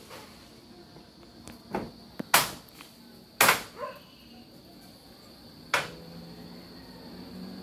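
Several sharp knocks and bangs on a corrugated metal roof while mangoes are knocked down with a long bamboo pole. The loudest two come about two and a half and three and a half seconds in, and a last one comes near six seconds. A steady insect trill sounds underneath.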